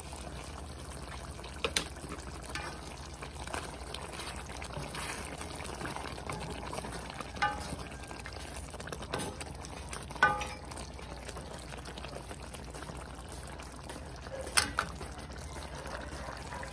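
Thick mechado sauce simmering and bubbling in a wok, stirred with a spatula, with a few sharp taps of the spatula against the pan.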